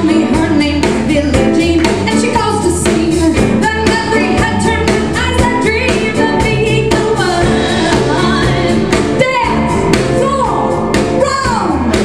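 Live band playing a steady groove, with upright bass, guitar and piano, and a woman singing over it with sliding vocal lines.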